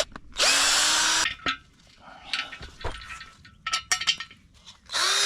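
Power drill running in short bursts, driving bolts into concrete: one burst of about a second near the start and another starting near the end. In between, scattered metallic clinks and taps.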